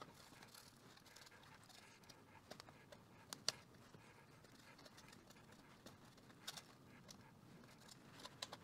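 Faint rustle of a paper towel rubbing over a vintage pocket transistor radio's plastic case, with a few light clicks, the sharpest about three and a half seconds in.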